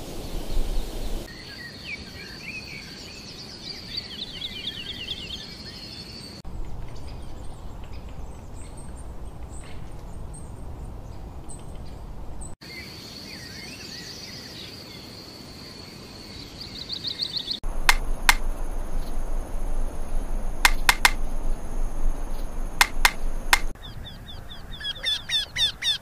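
Songs and calls of several small birds, heard in short stretches that change abruptly every few seconds: high whistled notes and trills, a middle stretch of sharp clicking calls, and a fast run of repeated call notes at the end.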